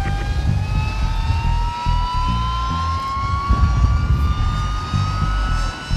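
Helicopter turbine engine whining, the whine rising slowly and steadily in pitch, as an Alouette III's turbine spools up. Wind buffets the microphone with a gusty rumble.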